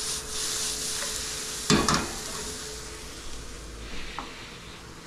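Chopped onion, carrot and garlic sizzling in a skillet while being stirred with a wooden spoon, with one loud knock about two seconds in. The sizzle fades in the second half, with a few light clicks near the end.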